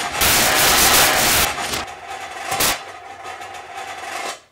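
A car driving into a plastic wheelie bin: loud crunching and scraping over its running engine, with a second crunch about two and a half seconds in, then the sound cuts off suddenly at the end.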